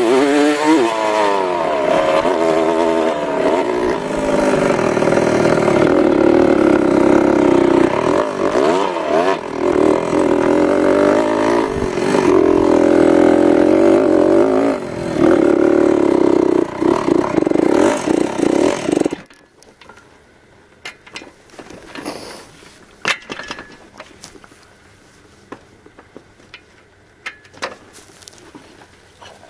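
Yamaha dirt bike engine running and revving up and down while riding, then cutting out abruptly about two-thirds of the way in. After that come only scattered clicks and knocks.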